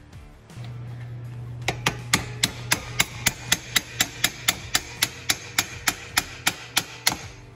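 Brass hammer tapping steadily on steel, about four light strikes a second for roughly five seconds, driving a soft tapered pin home through a control arm on a Ford Model A steering column shaft.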